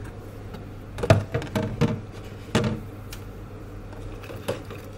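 Several sharp knocks and clunks in a stainless steel sink, bunched between about one and three seconds in, with a single one near the end: a metal drain strainer stopper being seated and a plastic washing-up bowl set down in the basin.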